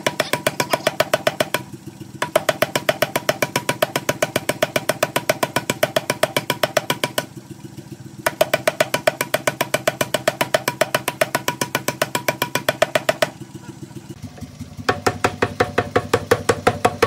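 Mechanical power hammer striking hot steel in rapid, even blows, each with a metallic ring, over the steady hum of its motor. The blows stop three times for a moment while the motor keeps running.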